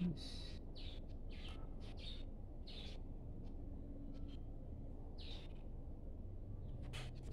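Pencil lead of a drawing compass scratching on paper in a series of short strokes as an arc is scribed.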